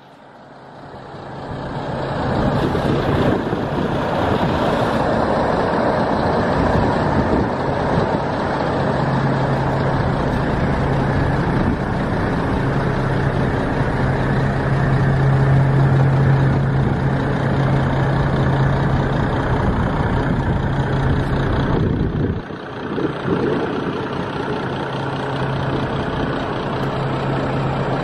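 MAN TGS 24.440 truck's 12.4-litre straight-six diesel idling steadily.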